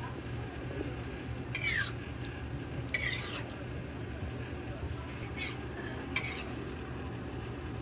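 Oil sizzling on a flat griddle under frying hotteok, with four short metallic scrapes and clinks as a steel hotteok press is worked against the griddle.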